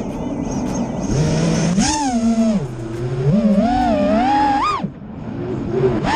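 FPV quadcopter's brushless motors whining, the pitch swinging up and down with the throttle. About five seconds in the pitch drops sharply as the throttle is cut, then climbs again.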